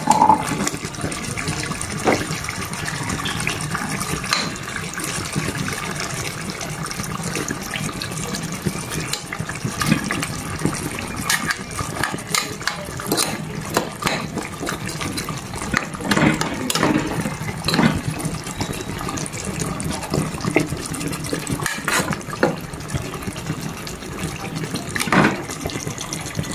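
Coconut milk boiling in a pot: a steady bubbling with scattered small pops.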